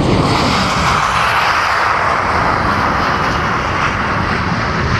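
Fixed-wing aircraft's engines running loud and steady, a dense rushing noise without a clear pitch.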